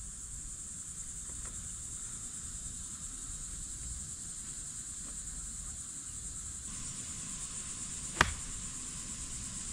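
Steady high-pitched drone of insects, and about eight seconds in, one sharp click of a golf club striking the ball.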